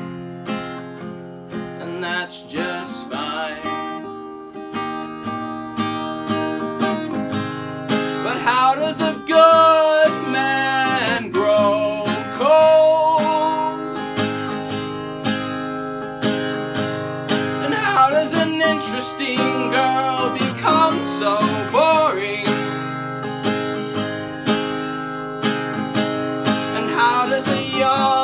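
Acoustic guitar strummed and picked, with a man singing over it in stretches.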